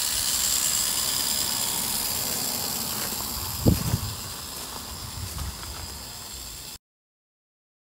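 Steady hiss with a faint high whine, slowly getting quieter, broken by a single knock a little under four seconds in; the sound cuts off abruptly near the end.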